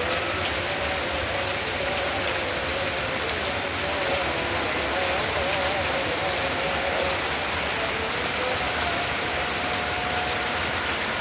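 Steady rain falling, with the dense patter of many drops. A faint wavering tone rises and falls in the background partway through.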